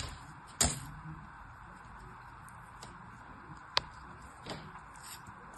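Hands handling a molded turtle of kinetic sand: a few sharp clicks and taps, the loudest about half a second in and another near the four-second mark, over a faint steady hiss.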